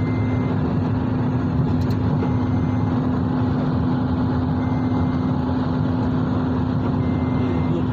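Steady road and engine noise inside a moving car's cabin, with a constant low hum. A faint short high beep repeats about every two and a half seconds.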